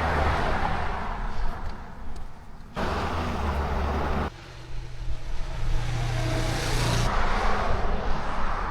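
Motor vehicles driving past on a highway, a steady rush of tyre and engine noise with a low engine hum, which changes abruptly a few times.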